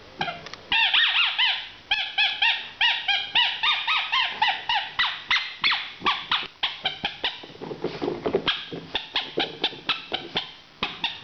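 Golden retriever puppy chewing a squeaky toy burger, squeaking it over and over at about two to three squeaks a second.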